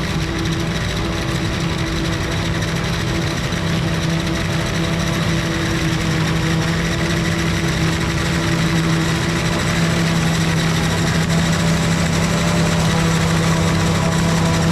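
Heavy diesel farm machinery running steadily under load, a continuous engine hum that grows slowly louder.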